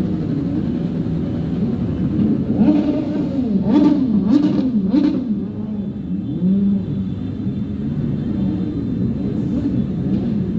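Many motorbike engines in dense, jammed street traffic, revving up and down over one another. Three short, sharp blasts stand out between about three and a half and five seconds in.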